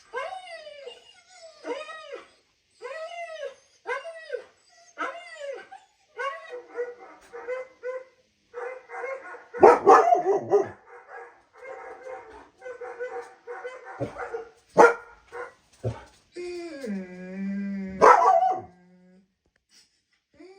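Dog vocalizing: about six rising-and-falling yelping whines roughly once a second, then a long run of quick barks with a few loud sharp ones, and a drawn-out howl near the end.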